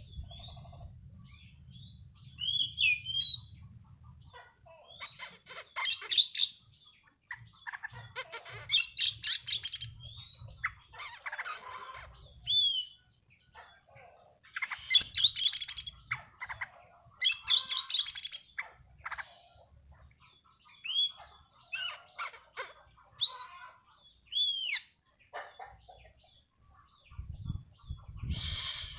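A songbird in breeding condition singing in repeated bouts: fast buzzy trills alternating with short, separate whistled chirps that rise and fall.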